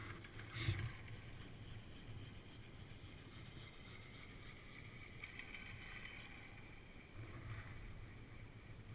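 Sliding over groomed snow while being towed up a drag lift: a faint, steady scraping hiss with wind rumbling on the microphone, swelling louder briefly about a second in and again near the end.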